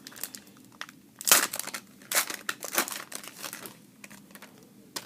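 Trading-card pack wrapper being crinkled and crumpled in the hands, in irregular crackling bursts, loudest about a second and a half in.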